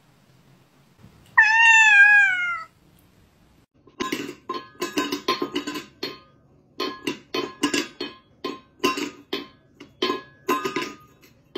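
A domestic cat gives one long, loud meow that falls in pitch. A few seconds later comes a run of short, sharp sounds at about two or three a second, in an uneven rhythm.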